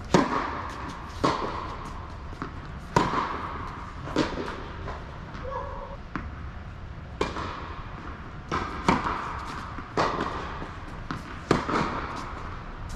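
Tennis ball struck by Yonex rackets and bouncing on an indoor hard court: sharp hits and bounces about a second or so apart, each echoing briefly in the hall.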